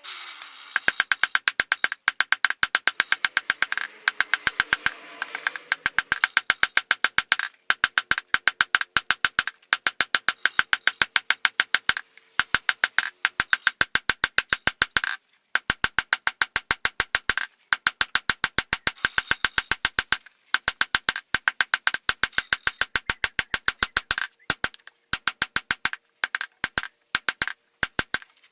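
Hammer blows on steel over an anvil, struck rapidly in runs of a second or two with brief pauses between, each blow ringing brightly.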